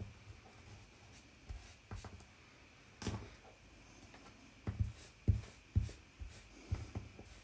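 Soft knocks and taps of small paper pieces being handled and pressed on a tabletop during crafting, scattered at first, then about five firmer knocks in the second half.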